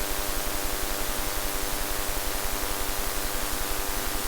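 Steady background hiss with a constant electrical hum and a low, even pulsing underneath; no distinct event stands out.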